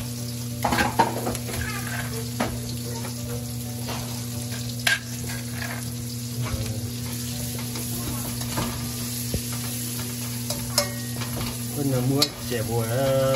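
Aromatics and dried chili sizzling in hot oil in a steel wok, stirred with a spatula that now and then knocks and scrapes against the pan.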